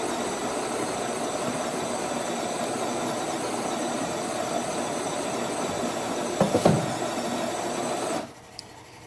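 Spinn centrifugal coffee machine's motor running steadily in its brew cycle, with a few louder knocks about six and a half seconds in, then cutting off suddenly near the end.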